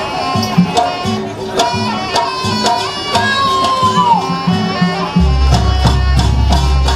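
Traditional jaranan ensemble music: drums struck in a quick, steady rhythm under a reedy shawm (slompret) melody that bends in pitch. About five seconds in, a loud deep bass tone comes in and holds.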